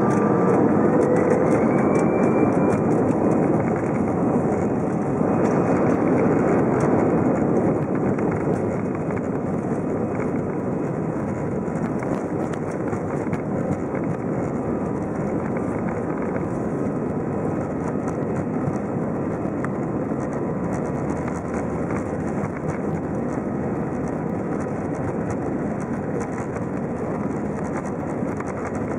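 Airbus A320 jet engines spooling up to takeoff thrust, heard inside the passenger cabin: a whine rises in pitch over the first few seconds, then gives way to a steady roar and rumble as the airliner runs down the runway on its takeoff roll.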